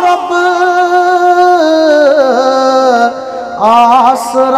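A man's voice singing a devotional nazm in Kashmiri, drawing out the word 'Rab' in a long, ornamented held note. He breaks briefly about three seconds in, then comes back in on 'aasra'.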